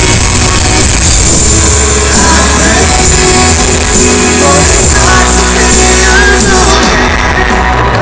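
Loud amplified band music with a heavy, steady bass and a melodic line gliding above it; a bright high wash cuts out near the end.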